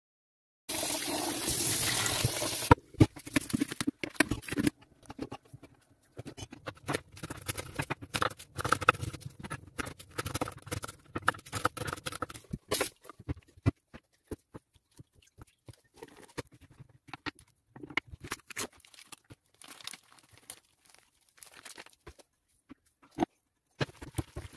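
Knife chopping onion on a wooden cutting board: many quick, irregular taps. A brief steady hiss comes near the start, and sparser taps and handling noises come later.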